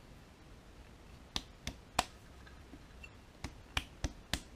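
Metal-on-metal clicks from a harmonic balancer (ATI Super Damper) being worked by hand on an LS engine's crankshaft snout around the installation tool's threaded rod: about seven sharp, irregular clicks, the loudest about two seconds in.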